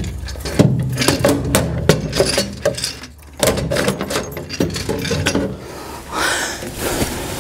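Irregular metal clanking, knocking and scraping as a caster assembly is worked loose and manoeuvred out through the steel stand of a Ridgid R4512 table saw. Near the end, a stretch of cloth rustling.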